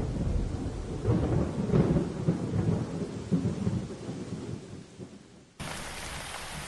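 Thunder rumbling and slowly dying away, then a steady hiss for about the last second.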